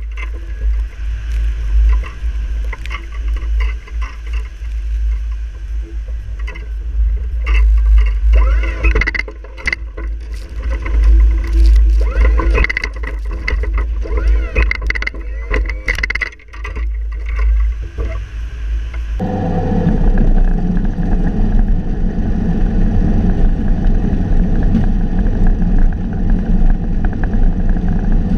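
Snow plow blade pushing heavy snow, heard from a camera mounted at the blade: a gusting rumble with knocks and scrapes. About two-thirds of the way in, the sound cuts to the steady engine of a skid-steer loader running, heard from inside its cab.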